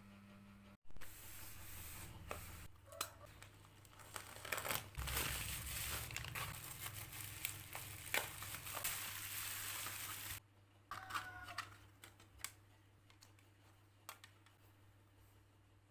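Packaging being torn open and crinkled by hand, a dense rustle with many sharp clicks starting suddenly about a second in. About ten seconds in it drops to quieter handling with a few small clicks.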